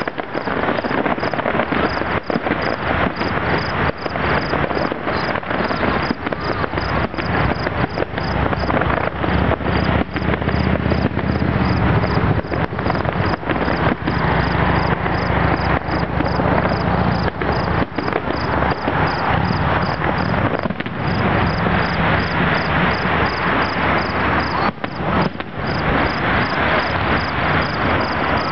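Fireworks display: a continuous dense crackle of small bursts and pops over a low rumble that swells for several seconds midway. A high, regular chirping of crickets, about three or four chirps a second, runs underneath.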